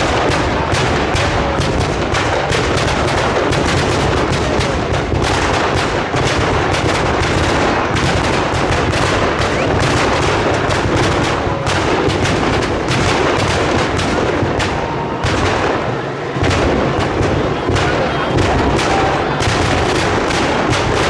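Firecrackers packed into a burning Ravana effigy going off in a dense, continuous barrage of sharp bangs, rapid like machine-gun fire.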